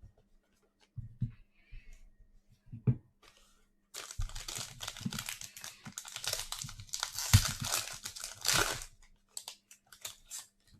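A sealed pack of trading cards being torn open and its wrapper crinkled. A few soft handling knocks come first, then about five seconds of tearing and crinkling from about four seconds in, then a few light clicks.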